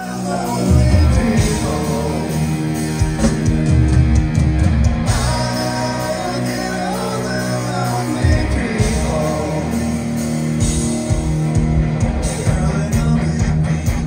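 Live rock band playing a song loudly: electric guitar, bass and drums, with a voice singing over it.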